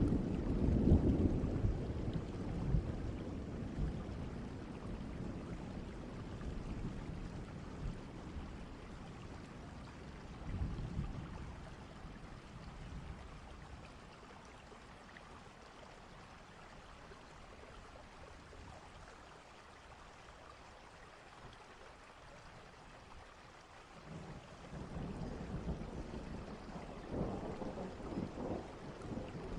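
Thunderstorm: rolling thunder rumbles at the start, again briefly about ten seconds in, and builds again after about twenty-four seconds, over steady rain.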